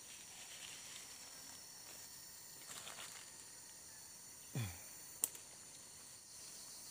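Steady high insect chirring of the forest, with faint rustling of thin cord being wound and knotted by hand. About four and a half seconds in there is a short low thud, then a sharp click just after.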